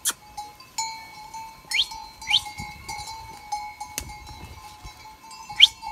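Goat bells clanking and ringing as the goats move, with three short rising chirps in among them.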